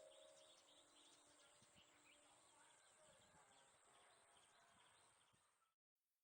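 Near silence, with very faint bird chirps barely above the background hiss in the first half.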